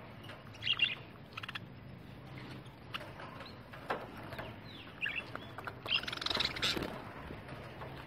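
Budgerigars chirping and chattering in short bursts, with scattered clicks. The chirping is busiest about six to seven seconds in.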